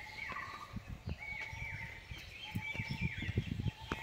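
A bird calling over and over, a short two-part phrase with a falling note, repeated about once a second. Soft low rumbles and knocks sound underneath.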